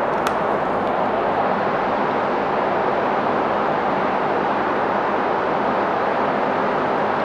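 Paint booth exhaust fan running with a steady rushing noise, with one faint click near the start.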